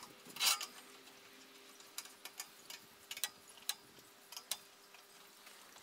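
Light, irregular clicks and ticks, about a dozen, with a short scrape about half a second in, as a cast iron log clamp on a steel sawmill frame is worked by hand against a log. A faint steady hum runs underneath.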